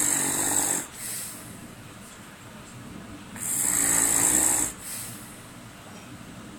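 A sleeping man snoring heavily: two loud, rasping snores about three and a half seconds apart, each followed by a short, softer breath.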